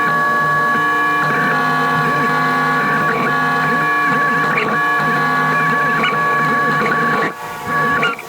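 Creality CR-M4 3D printer printing: its stepper motors whine in short rising and falling glides as the print head moves, over a steady fan hum. The sound drops away sharply twice near the end.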